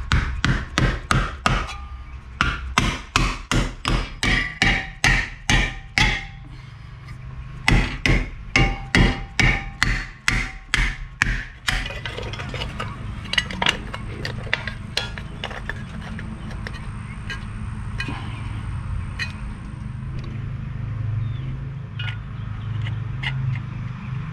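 Hammer blows in two runs of quick, even strikes, about two to three a second, with a short pause between. After that only light scattered clicks of handling are heard.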